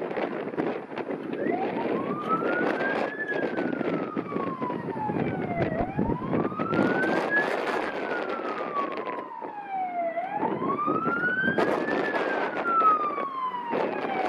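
Fire truck siren sounding a slow wail from about a second and a half in, rising and falling three times, about four seconds per cycle. Heavy wind buffets the microphone throughout.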